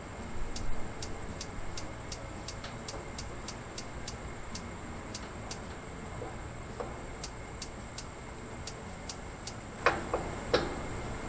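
Electronic spark igniter of a Member's Mark Pro Series propane grill clicking rapidly, about four sparks a second, in two runs with a pause between, while the burner does not light. A couple of knocks near the end.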